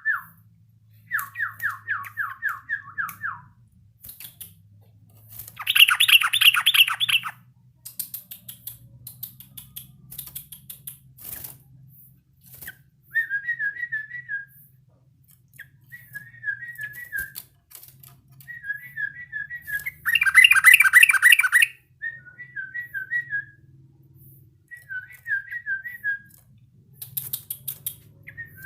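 Yellow-vented bulbul calling: a quick run of falling whistled notes, then short clusters of three or four whistled notes repeated every couple of seconds. Two louder, rougher bursts come about six seconds in and again about twenty seconds in.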